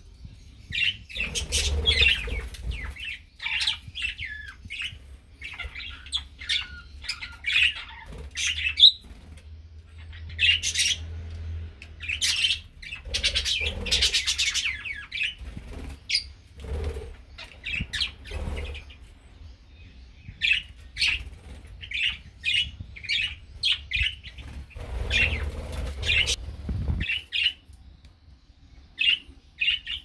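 A flock of budgerigars chirping and chattering in many short calls, with a few bouts of wing flapping.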